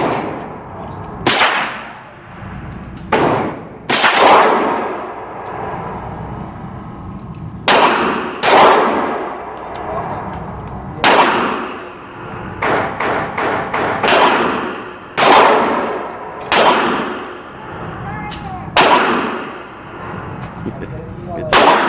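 Repeated gunshots, each with a metallic ringing clang that fades over about a second. There are about a dozen, one to three seconds apart, with a quick run of several lighter cracks a little past halfway.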